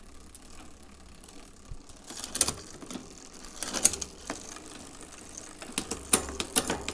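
Scattered metallic clicks and rattles of hand tools and brake hardware as a bicycle's cantilever brake and pad are adjusted, with a quick run of ticks near the end.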